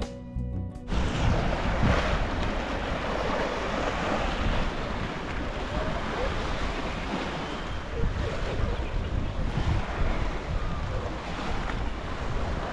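Wind buffeting the microphone over the steady wash of lake water along the shore.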